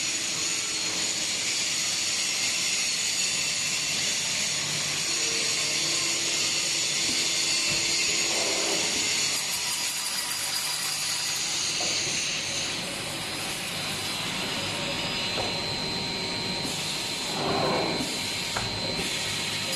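Automatic frame-cutting saw running and cutting polystyrene frame moulding: a steady high whine over a hiss, with a few louder moments as the blade goes through the moulding.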